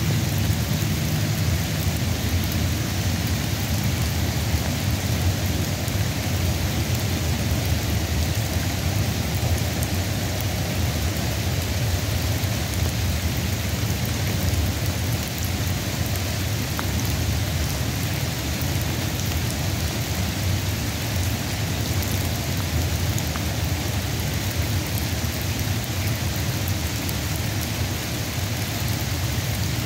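Steady rain falling, a constant even hiss with a low rumble underneath.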